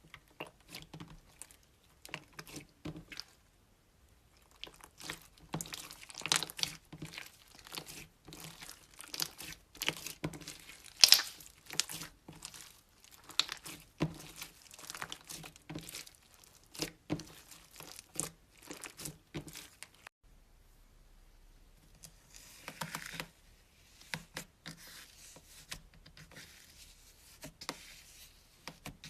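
Slime being squeezed and kneaded by hand, giving off many small irregular crackles, clicks and squelches, with a brief lull about two-thirds of the way through.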